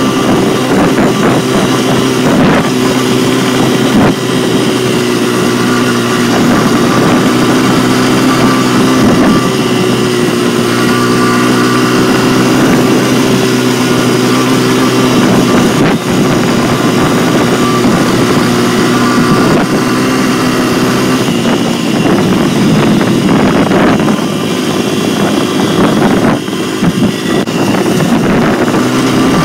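Dirt bike engine running steadily under way, its note dipping briefly a couple of times.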